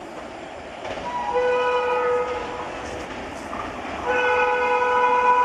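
WAP-7 electric locomotive's horn sounding two blasts over the noise of the approaching train: a short chord of several tones about a second in, and a longer one starting about four seconds in and still held at the end.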